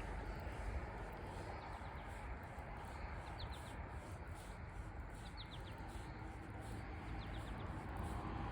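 Steady low hum of road traffic with a small bird calling over it: quick runs of three or four high, falling chirps, three times.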